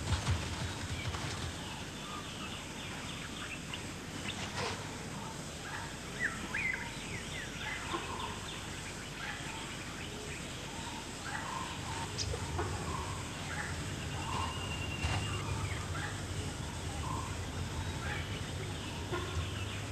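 Forest ambience: scattered short bird calls and chirps, some rising or falling in pitch, over a steady low hiss and hum.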